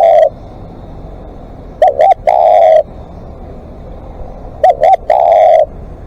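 Spotted dove cooing at close range: a phrase of two short coos followed by one longer, drawn-out coo. The phrase comes twice, about three seconds apart, with the end of a previous phrase just at the start.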